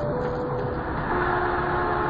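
Steady road and engine noise of a moving car heard inside the cabin, with a faint held tone over it that steps lower about a second in.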